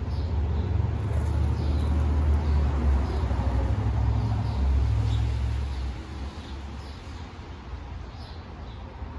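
A low engine rumble from a vehicle dies away about six seconds in, while small birds give short chirps now and then.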